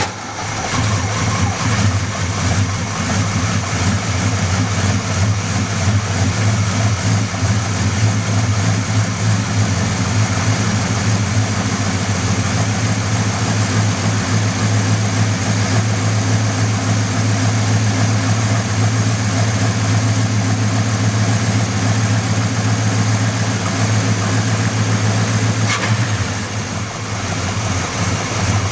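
Buick 350 V8 engine running steadily just after starting, with an engine knock.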